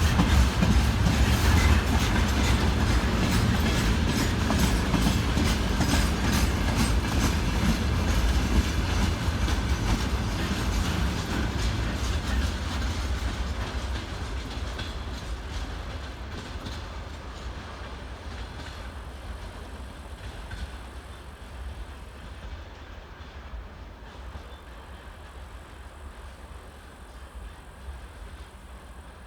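Freight train wagons rolling along the track, their wheels clacking over rail joints over a low rumble, fading steadily as the train moves away.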